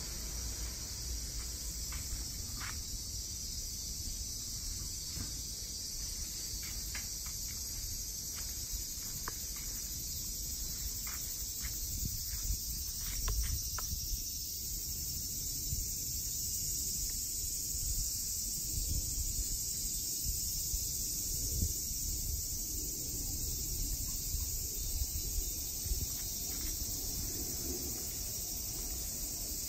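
Steady high-pitched chorus of insects droning in the garden trees, with a low rumble underneath and a scatter of short faint ticks in the first half.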